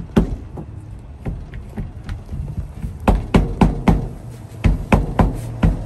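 Sharp knocks on a 1961 Volkswagen Beetle's windshield glass, struck by hand to seat it in its rubber weatherstrip. They are scattered at first, then come in two quick runs of four or five knocks in the second half.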